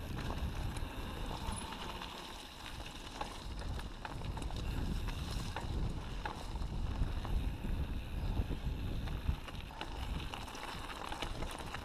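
Mountain bike rolling down a dirt and gravel singletrack: tyre noise on the trail, heavy wind buffeting on the microphone, and scattered clicks and rattles from the bike and loose stones.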